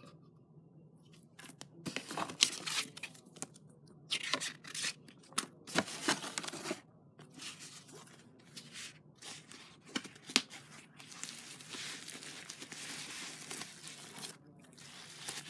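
Ocarina packaging being torn open and crinkled by hand in irregular bursts, with a few sharp clicks and a steadier stretch of rustling near the end.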